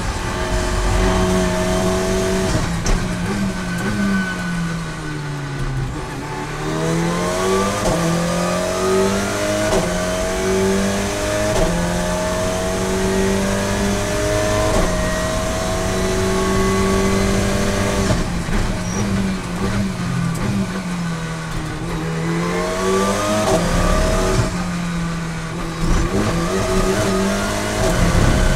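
Alpine A110 GT4 race car's turbocharged four-cylinder engine under hard running, heard from inside the cockpit. Its pitch falls twice as the car brakes and downshifts for corners, then climbs again as it accelerates back through the gears.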